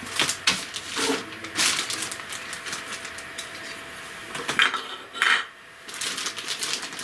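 Small plastic model-kit parts clicking and clattering as they are handled and pushed together, with two sharper knocks about four and a half and five seconds in.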